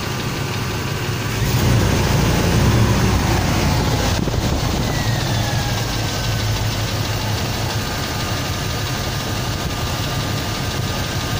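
Chevrolet 350 TBI small-block V8 idling with a valve-lifter tick from the top end, the sign of collapsed hydraulic lifters, with ATF just added to the oil to free them. It gets louder for a couple of seconds about one and a half seconds in.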